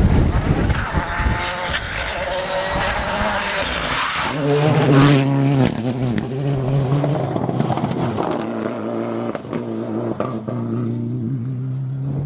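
Rally car engine revving hard as the car comes through the stage, with wind buffeting the microphone at first. From about four seconds in the engine holds a steady high pitch, loudest around five seconds, with sharp cracks and clicks over it.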